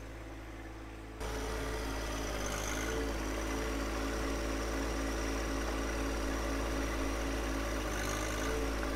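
John Deere 1025R compact tractor's three-cylinder diesel engine running at a steady speed while the front loader works, coming in abruptly about a second in.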